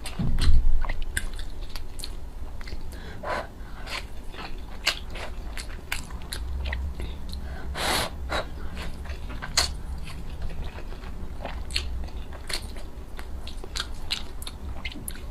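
Close-miked biting and chewing of food: many sharp, irregular clicks of teeth and mouth sounds, with a low thump about half a second in.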